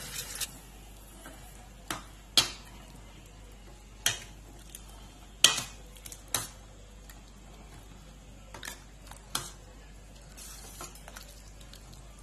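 A steel ladle stirring a thin vegetable and lentil mixture in a steel kadai, clinking against the pan about eight times at uneven intervals. A sizzle from the freshly added liquid dies away in the first half second.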